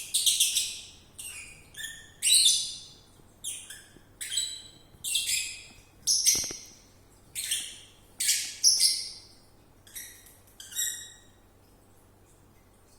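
A lovebird's squeaky snoring while asleep: short, high chirps about once a second, each fading quickly. They stop near the end.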